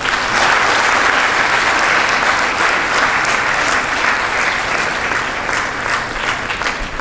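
Audience applauding, starting all at once and thinning out near the end.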